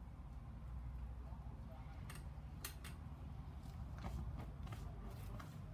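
Several sharp clicks and small knocks of garden hose gear being handled, most of them in the second half, over a low steady rumble.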